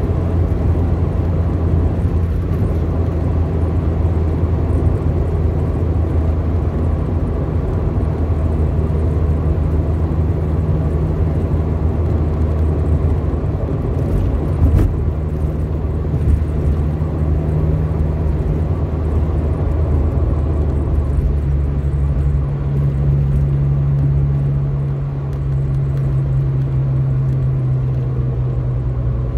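Ford Capri 1.6S's four-cylinder engine running steadily under way, heard from inside the car, over road noise. The engine note shifts to a different pitch about two-thirds of the way through, and there are two brief knocks near the middle.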